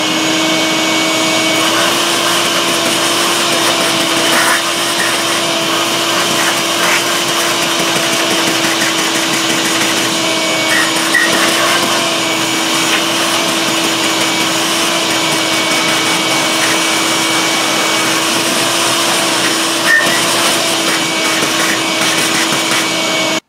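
Shop vacuum running steadily with a constant whine, its hose sucking concrete dust out of freshly drilled anchor holes, with a few faint rattles of grit now and then.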